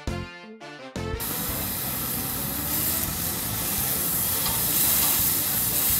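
A short musical jingle, then from about a second in, beef slices sizzling on a gas-fired yakiniku grill grate: a steady, dense hiss that swells a little midway.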